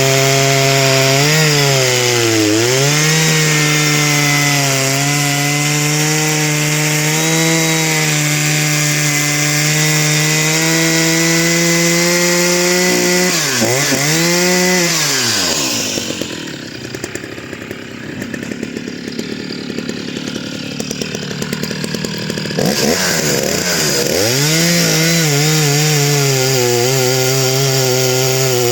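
Husqvarna 480CD 77cc two-stroke chainsaw running at full throttle and cutting wood, its pitch sagging and recovering under load. About halfway through it drops back to a low, rough idle for several seconds, then revs up and cuts again.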